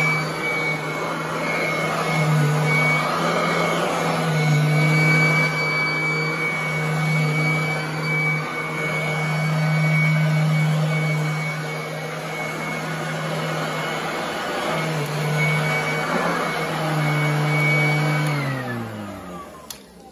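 Royal commercial upright vacuum cleaner running over carpet: a steady motor hum with a high-pitched whine. Near the end it is switched off, and the motor spins down with its pitch falling away until it stops.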